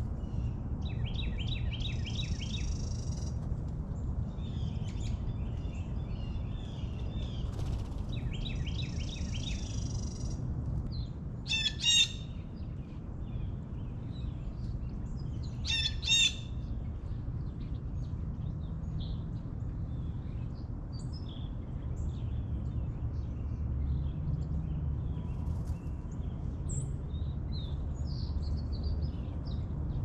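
Two loud, harsh blue jay calls about four seconds apart, each short. Softer rapid bird notes and scattered chirps run around them.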